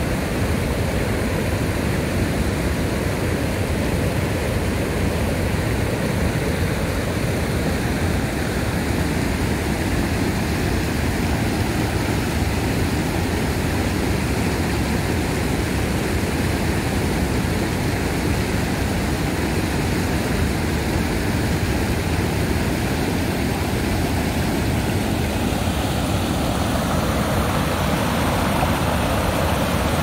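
Steady rush of a swollen waterfall below a reservoir spillway, with the water running high and strong after two days of rain. Its tone turns a little brighter near the end.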